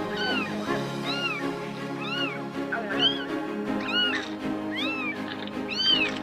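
Newborn kitten mewing over and over: short, high-pitched calls that rise and fall, about one a second.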